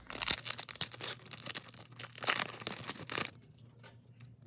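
Foil trading-card pack wrapper crinkling and tearing as it is ripped open, a dense crackle for about three seconds that then thins out.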